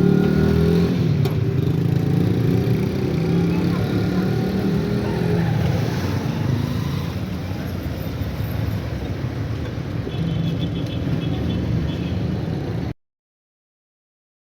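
Motorcycle engine running steadily, with street noise around it. The sound drops out completely about a second and a half before the end.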